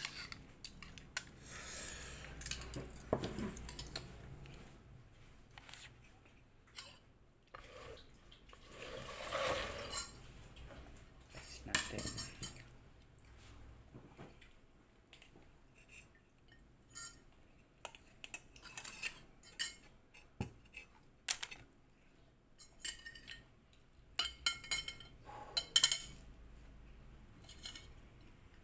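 Metal spoon and fork clinking and scraping against a ceramic plate and a stainless steel pot as food is served and eaten, in scattered, irregular clinks.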